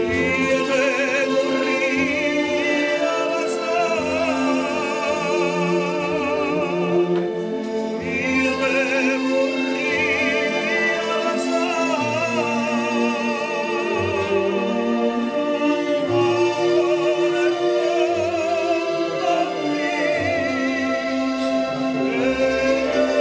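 A man singing a song with heavy vibrato over a steady instrumental accompaniment.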